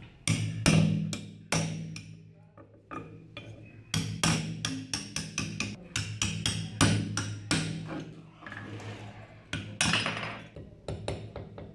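Hammer striking a steel punch to drive out the rivets of an old butcher's meat cleaver's handle: a run of sharp metallic knocks, irregular, about two a second.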